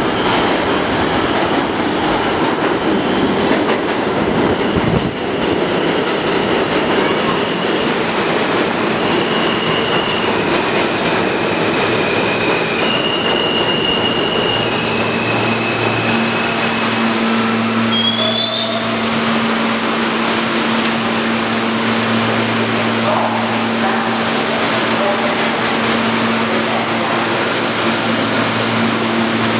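R160 subway train running into the station and braking to a stop, with a steady rumble and high-pitched squealing that shifts in pitch several times as it slows. From about halfway the train stands, giving off a steady low hum.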